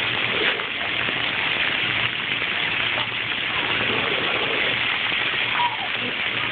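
Splash-pad water jets and sprays falling onto wet concrete, a steady rain-like hiss of spraying and splashing water.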